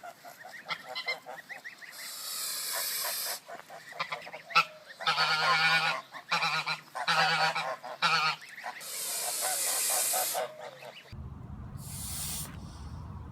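A goose hissing in long drawn-out breaths and giving a run of about four harsh honks in the middle, the angry, defensive display that warns an intruder to back off. Near the end more short hisses sound over a low rumble.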